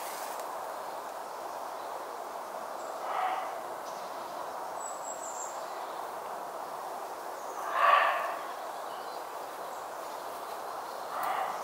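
An animal calling three times, a few seconds apart, each call short; the one about eight seconds in is the loudest. Under it runs a steady background hiss.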